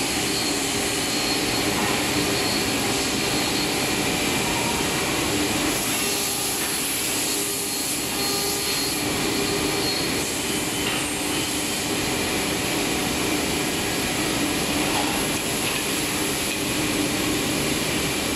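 Changfeng CF-DZ1625ATC1 CNC wood router cutting a circular ring from a wood panel: the spindle runs with a steady whine over a dense, even hiss of the bit cutting and the machine's extraction running, without pause.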